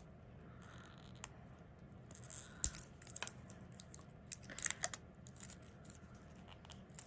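Fingernails picking and peeling tight clear plastic wrapping off a lip liner pencil: faint scratching and crinkling broken by irregular small clicks, busiest around the middle.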